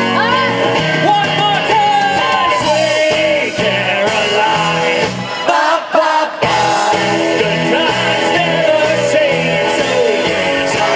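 Live band music: electric guitars, bass, drums and keyboard under male and female lead vocals. The band briefly drops out a little before six seconds in, then comes back in.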